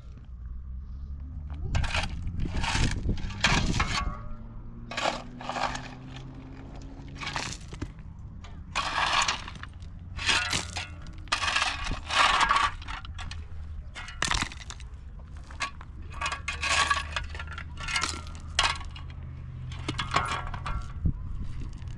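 Repeated short crunching, clattering strokes of material breaking, irregular at about one a second, over a low steady hum.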